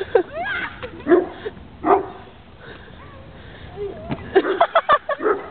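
People making wordless, strained vocal sounds: short whines, grunts and yelps that slide up and down in pitch, quieter midway and bunching into a cluster of quick yelps near the end.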